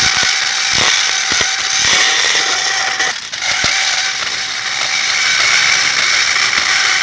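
Home-made plastic-cutting machine, a meat-saw blade driven by a small washing-machine motor through a belt and pulleys, cutting through a plastic computer keyboard: a loud, continuous rasping clatter with irregular sharp knocks. The small motor labours under the load, and the sound dips briefly a little past three seconds before picking up again.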